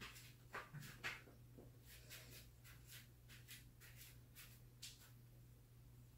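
Faint soft scuffs and rustles of hands and feet moving on a yoga mat during inchworm exercises, a couple of louder ones about a second in, over a low steady room hum.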